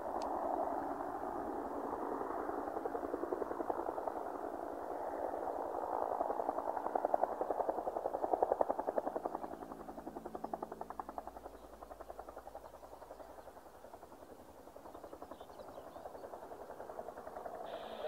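Bell UH-1J helicopter hovering, its two-blade main rotor beating in a fast, even pulse over the turbine's noise. The sound is loudest about eight seconds in, then quieter.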